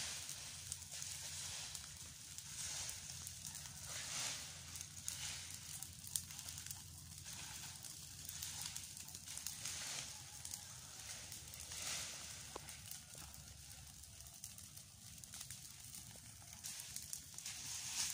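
Piles of dry leaves burning in the open, the fire crackling with scattered small pops over a rushing hiss that swells and fades every second or two, and a steady low hum underneath.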